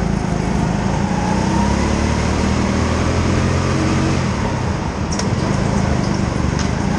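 Go-kart engine running at speed, heard from on board, its pitch drifting up and down slightly through the bends. Two short ticks in the second half.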